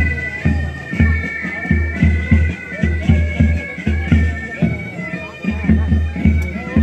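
Military pipe band playing a march: bagpipes carry the melody over their drone, with a bass drum beating about twice a second.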